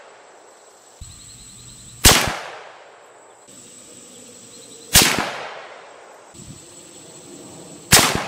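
Three rifle shots from a CVA Cascade in .22-250 firing 55-grain loads, about three seconds apart, each trailing off in a short echo.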